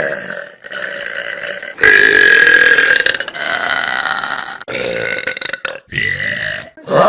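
A run of loud human burps, one after another with abrupt cuts between them. The loudest and longest lasts about a second and a half, starting about two seconds in.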